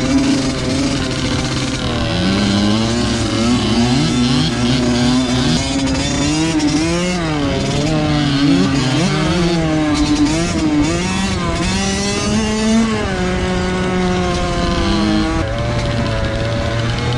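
Two-stroke motocross dirt bike engines riding a track, revving up and down over and over as the throttle opens and closes, with two engine notes crossing each other. The revs settle to a steadier, lower note near the end.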